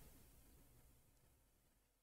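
Near silence: a pause between spoken lines, with only faint background hum.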